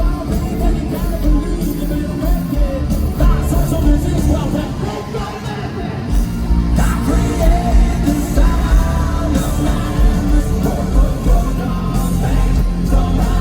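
Hard rock band playing live, with a male lead singer over guitars, bass and drums. The bass and drums drop out briefly about five seconds in, then the full band comes back in.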